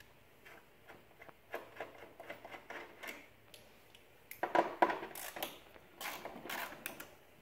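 Hand ratchet clicking in short runs while the bolts holding a van's bonnet catch are undone, with a few louder knocks of tool and metal parts about halfway through and again near the end.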